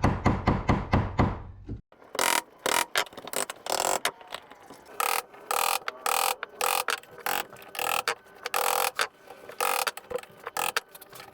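Wood being cut by hand to square the corners of a routed rabbet: first a quick run of even knocks, about five a second, then a long series of short, irregular rasping strokes.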